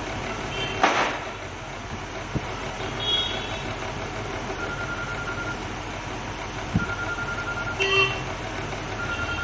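Steady background noise, with a few short horn-like toots and a pulsing beep that starts and stops a few times.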